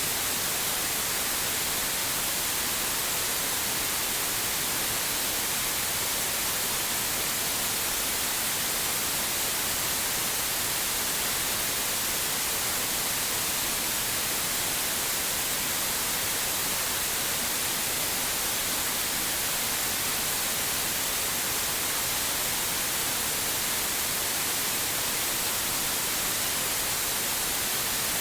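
Generated white noise: a steady, even hiss, brightest in the treble, with no change in level or character.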